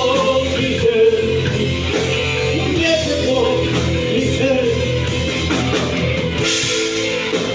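Live rock music: a voice singing a melody over guitar and a full band.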